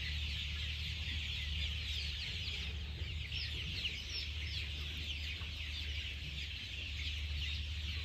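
A large flock of young Golden Misri chicks cheeping together: a dense, steady chorus of short high peeps over a low steady hum.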